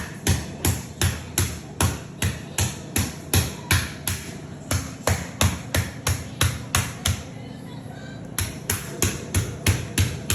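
A meat tenderizer pounding raw chicken: a rapid, steady series of thuds, about three strikes a second, that pauses for about a second two-thirds of the way through and then carries on.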